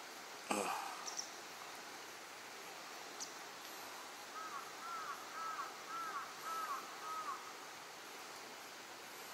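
A bird calling a run of about seven short, clear notes, each rising then falling, over a steady background hiss. A single short, sharp knock about half a second in is the loudest sound.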